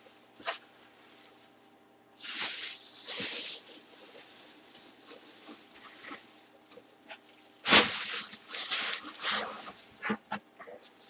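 Clear plastic bag around a football helmet rustling and crinkling as it is handled, in irregular bursts, with one sharp knock about eight seconds in.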